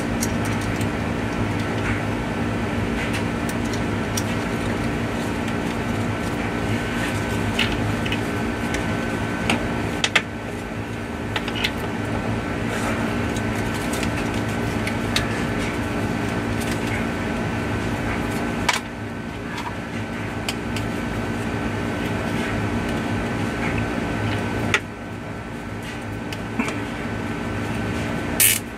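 A steady machine hum runs throughout, with scattered light clicks and rustles as a sensor wire is handled and fastened to a plastic pipe, and a sharper clicking near the end.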